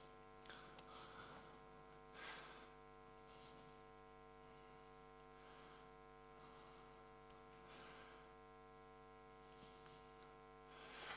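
Near silence: a steady low electrical hum with many even overtones, and a few faint short noises.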